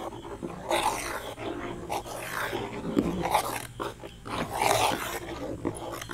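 Steel ladle stirring a thick milk-and-chocolate kulfi mixture in a metal pan: irregular sloshing and scraping against the pan.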